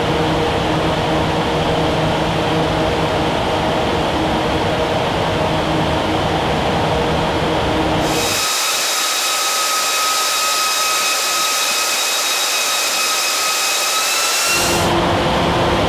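Twelve 700-horsepower electric wind-test fans running, blowing wind of about 100 mph: a steady rushing noise with a low hum. About eight seconds in, the low hum drops away and a steady high whine takes over, edging up in pitch near the end, before the lower rushing sound returns.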